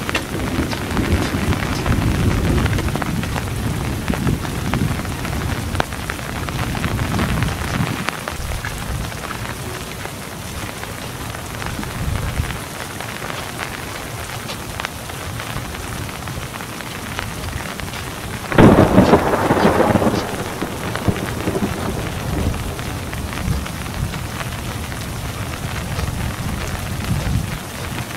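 Steady rain falling on wet pavement, with the low rumble of distant thunder through the first several seconds. About two-thirds of the way in comes a sudden loud burst of noise lasting about a second and a half.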